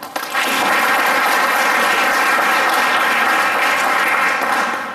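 Audience applauding: dense clapping that starts a moment in, holds steady and dies away near the end.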